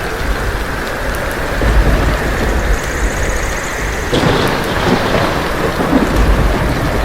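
Steady heavy rain with a deep, rolling rumble of thunder.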